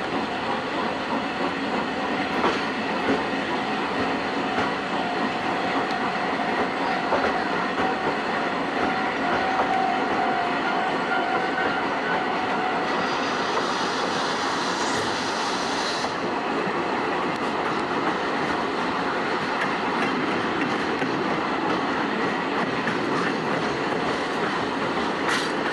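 Old-type JNR passenger coach rolling behind a C58 steam locomotive, its wheels clicking over the rail joints under a steady running noise. A held tone runs through the first half, and a high hiss swells past the middle and cuts off suddenly.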